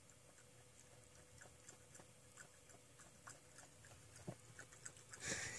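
A cat lapping water from a glass: faint, quick, irregular clicks of its tongue in the water.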